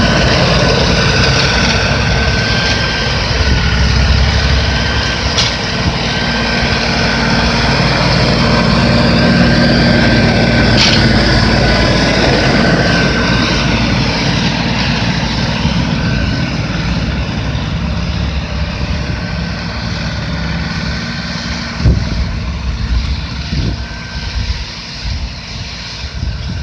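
2017 LS XR4155H 55 hp compact tractor's diesel engine running steadily, growing somewhat quieter in the last third, with a sharp knock near the end.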